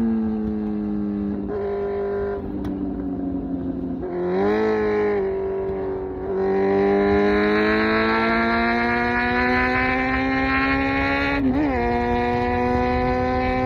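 Kawasaki Z900's 948cc inline-four engine through an SC Project exhaust, heard from the rider's position. The engine note sinks as the bike eases off, rises and falls in a brief blip about four and a half seconds in, then climbs steadily under acceleration from about six seconds, with a quick gear change near the end before settling to a steady note.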